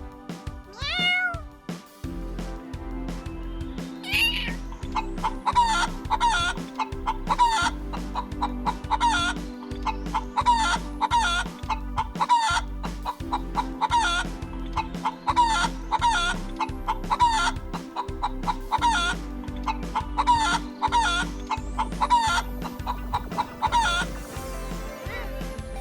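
Chickens clucking in a long run of short calls, about two to three a second, with a sharper squawk about four seconds in, over background music with a steady beat.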